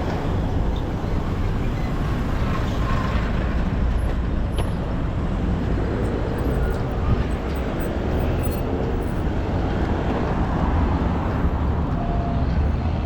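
Steady road and traffic noise, a continuous low rumble of moving vehicles.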